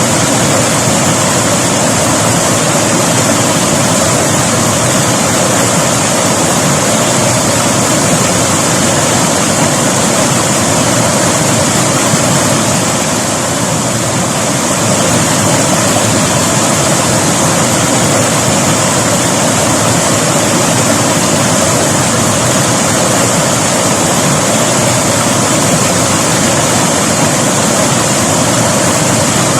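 River water rushing and splashing in a loud, steady wash with no pauses.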